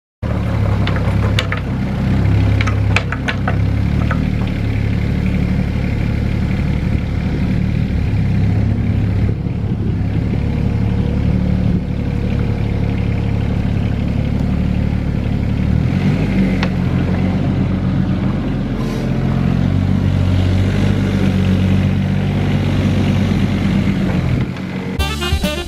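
Caterpillar 302.7D CR mini excavator's diesel engine running steadily as the boom, bucket and upper structure are worked and swung. There are a few sharp clanks in the first few seconds, and the engine note shifts about two-thirds of the way through as the load changes.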